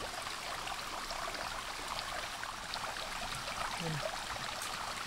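Creek water flowing steadily, with small splashes and drips as a wire-mesh fish trap is lifted up through the water.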